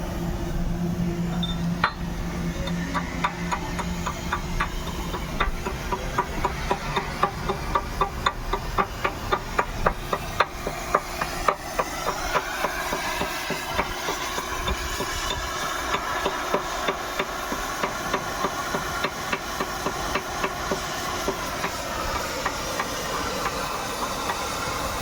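Excavator at work: the engine runs under a long series of sharp metallic knocks, about three or four a second, that stop about halfway through, giving way to a steady whine.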